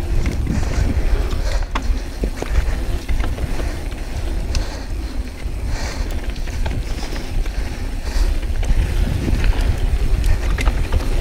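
Yeti SB6c mountain bike on a dirt singletrack: wind buffeting the action camera's microphone with a steady low rumble, tyres rolling over dirt and small rocks, and scattered sharp clicks and rattles from the bike.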